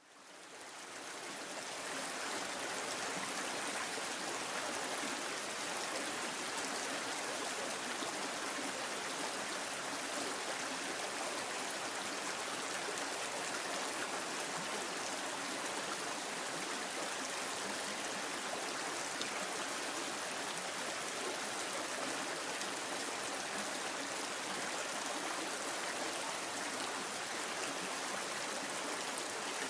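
A stream of running water, a steady rush that fades in over the first second or two and then holds even.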